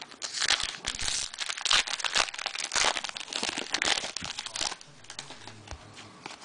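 Foil trading-card pack wrappers crinkling and tearing as they are handled, dense for the first four to five seconds, then dropping to a few light ticks.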